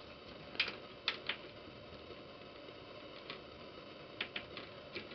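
Quiet room tone with a handful of light, sharp clicks and ticks scattered irregularly, two or three close together about a second in and a cluster near the end.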